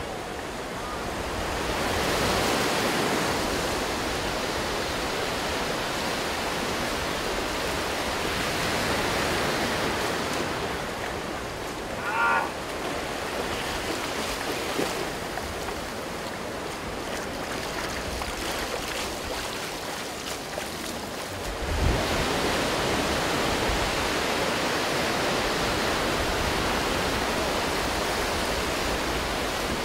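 Ocean surf breaking and washing up the beach. There is a brief shrill sound about twelve seconds in, and a short thump a little after twenty seconds, after which the surf is a little louder.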